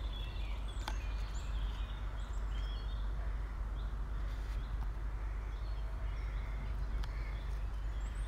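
Small birds chirping in woodland over a steady low rumble, with two faint sharp knocks, about a second in and near the end.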